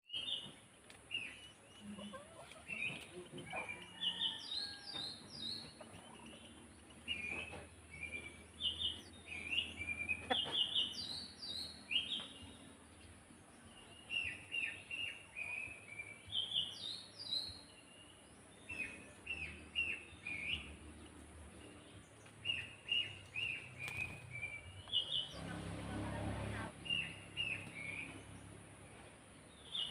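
Eurasian tree sparrows (maya) at a nest, chirping in short, sharp, repeated notes throughout, over a steady high hiss. A few seconds of low rushing noise come in near the end.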